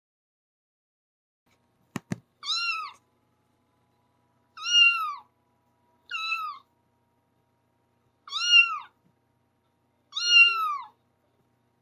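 A cat meowing five times, each meow rising then falling in pitch, spaced about two seconds apart, after a short double click about two seconds in.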